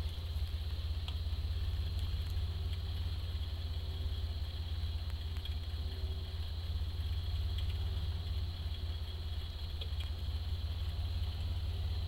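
Pickup truck engine running at low speed as the truck creeps slowly in reverse, a steady low rumble.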